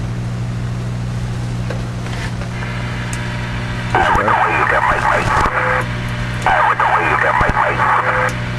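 Speaker of a Magnum Raptor ten-meter radio with a steady hum, and two stretches of thin, narrow-sounding voice audio about four seconds in and again about six and a half seconds in: a transmission recorded off the air being played back from an added Kopy Kat record/playback module.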